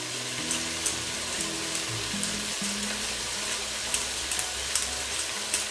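Onions frying in hot oil in a cast-iron cocotte: a steady sizzle with scattered sharp pops. Soft background music with low held notes plays underneath.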